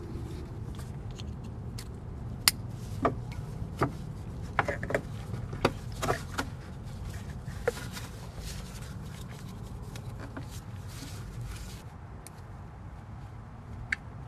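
Hands fitting small parts around the ignition coils in a car engine bay: a run of sharp clicks and light knocks about two to eight seconds in, and two more near the end, over a steady low rumble.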